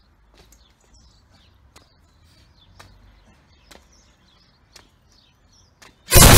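Faint birds chirping outdoors, with sharp ticks about once a second. Near the end a sudden, very loud burst of harsh noise cuts in.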